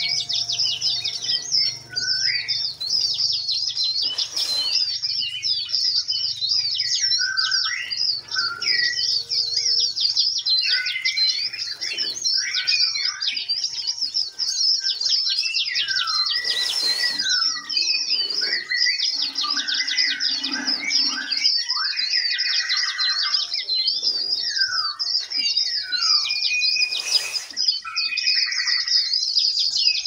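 A dense chorus of songbirds: rapid high-pitched chirping that never lets up, over many varied whistled calls and phrases. A few short splashy bursts come through it, about a third of the way in, midway and near the end.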